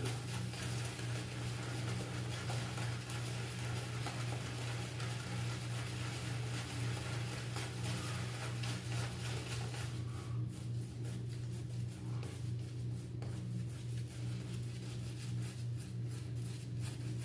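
Shaving brush scrubbing lather onto a stubbled face, a soft scratchy bristle sound that thins out about two-thirds of the way through, over a steady low hum.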